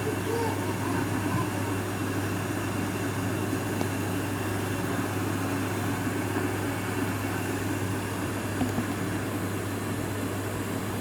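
A steady low hum with an even background hiss that does not change, like a fan or air conditioner running in the room.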